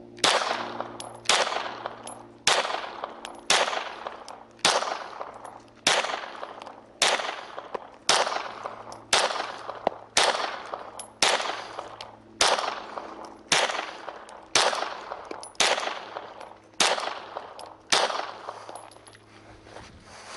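A Walther Creed 9mm pistol fires about seventeen shots at a steady pace, roughly one a second. Each shot is a sharp crack with a decaying echo, and the string ends when the magazine runs dry and the slide locks back.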